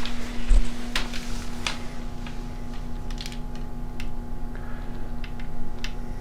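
A steady low hum with a handful of light clicks and knocks from someone moving about, and a low thump about half a second in.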